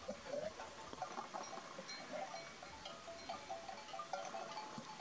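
Faint, irregular clinking of bells on a grazing flock of sheep and goats, short metallic tones following one after another.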